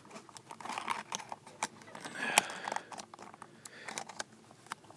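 A small diecast-car packaging box being handled and pushed shut by hand: scattered light clicks and crinkling, a little louder about two seconds in.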